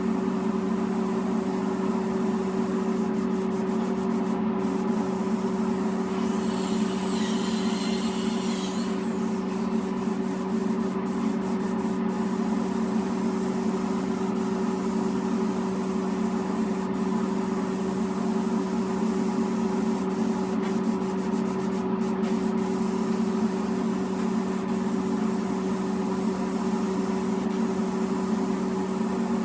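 Steady machine hum with a constant low drone, under Raptor textured coating being sprayed from an air-fed spray gun at about 45 psi. A brief higher hiss comes about six seconds in and lasts a few seconds.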